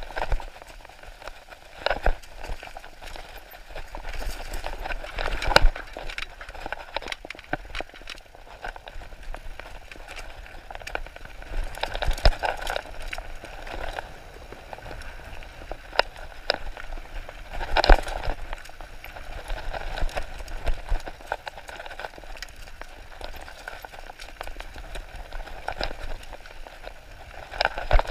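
Irregular rattling, clicking and knocking with a steady wind rumble on the microphone, as of riding along a rough trail, with a few sharper knocks standing out.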